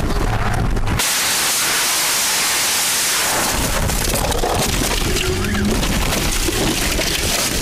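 A car crashing off the road, as heard from the dashcam inside it. About a second in, a loud, rough rushing noise starts abruptly and keeps going, with scattered knocks and rattles through it.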